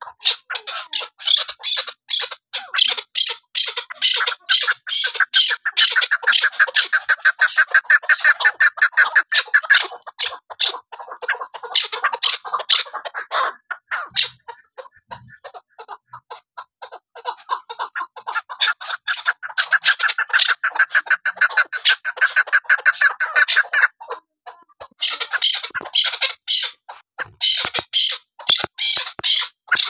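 Chukar partridge calling: a long, fast run of repeated chuck notes, several a second, with a brief pause near the end before the run starts again. This is the chakor call that hunters use to draw in wild birds.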